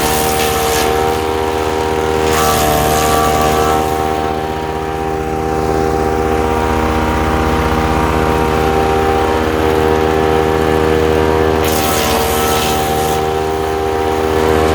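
Ducar woodchipper's gasoline engine running at speed, a loud steady drone. Three times a harsher rasp comes in for a second or so and the engine pitch dips a little under the load, the sound of material being fed in and chipped.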